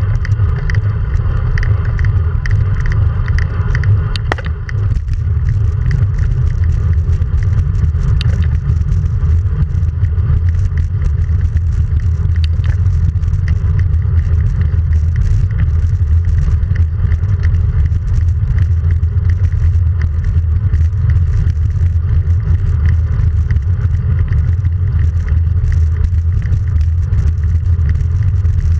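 Wind buffeting the microphone of a handlebar-mounted action camera on a road bike at speed: a loud, steady low rumble, with tyre noise on asphalt and scattered faint clicks.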